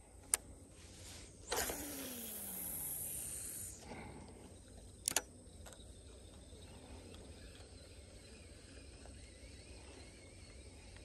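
Fishing line hissing off a Shimano Twin Power spinning reel during a cast for about two seconds, with a falling tone as it slows. About five seconds in the reel gives a sharp double click, followed by the faint, steady turning of the reel handle as the line is retrieved.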